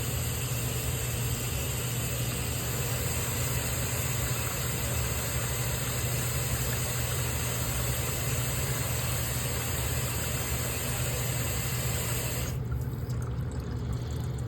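Water draining from a water heater's drain valve through a hose into a bucket: a steady rushing hiss over a low hum. About twelve seconds in, the rushing cuts off suddenly, leaving the hum.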